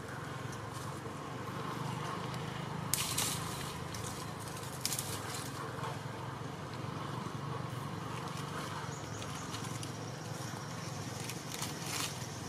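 Outdoor background: a steady low hum with a few sharp clicks, the loudest about three seconds in and another about two seconds later.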